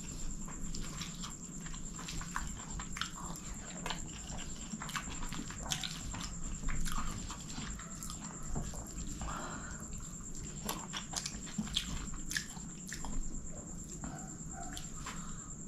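Close-miked eating: chewing and wet mouth clicks of chicken kottu and fried chicken eaten by hand, with fingers scooping through the food, as many small irregular clicks.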